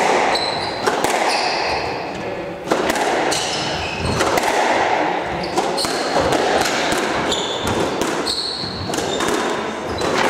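Squash rally: the ball cracking off racket strings and the court walls in quick irregular strikes, with sneakers squeaking on the wooden floor, echoing in the enclosed court.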